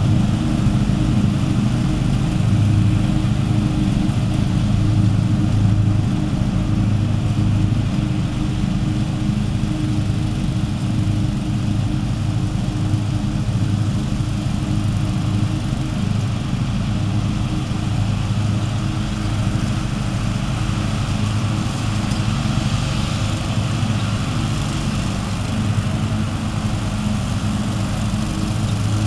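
Engine of a 14-foot-wide lawn mower running steadily under cutting load, a low pitched drone that fades slightly as the mower moves away.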